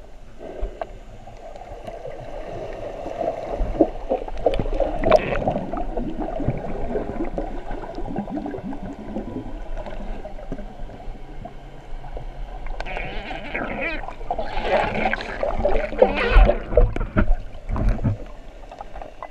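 Muffled underwater sound picked up through an action camera's waterproof housing: water churning and gurgling as a finned swimmer dives, growing louder and rougher with bubble noise for a few seconds in the second half.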